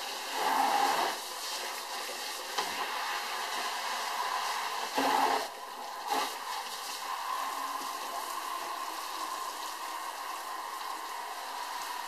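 A kitchen faucet's pull-out sprayer spraying water into a plastic fermenter bucket and the rinse water running out into the sink, washing the ring of fermentation crud and yeast sediment off the bucket's inside. The hiss of the spray is steady, growing louder twice, about half a second in and about five seconds in, with a few light knocks of the bucket.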